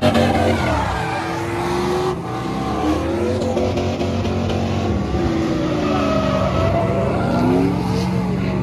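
Several truck engines revving hard at once, their pitches rising and falling over one another, over a steady noisy hiss.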